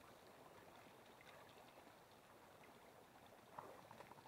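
Near silence: a faint, steady rush of a small creek's water, with a few light clicks near the end.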